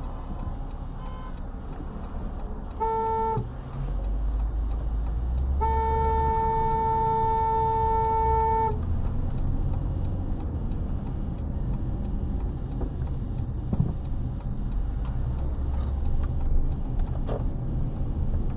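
A car horn sounds twice: a short toot about three seconds in, then a long blast of about three seconds, over steady road and engine noise heard from inside a moving car.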